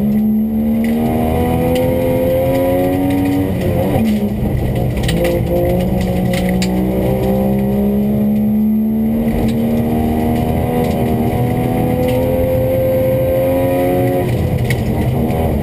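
Historic rally car's engine heard from inside the cabin, pulling hard under full acceleration. Its pitch climbs slowly and drops sharply at two upshifts, about four seconds in and near the end, with loose gravel ticking against the car throughout.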